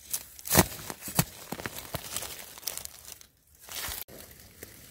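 Dry leaf litter and twigs rustling and crackling under hand and foot, with a sharp snap about half a second in and a brief lull past the middle.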